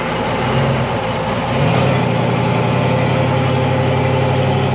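Rock crawler buggy's engine running loud as it crawls its front tire down a rock ledge. The engine speed wavers for the first second and a half, then rises and holds steady.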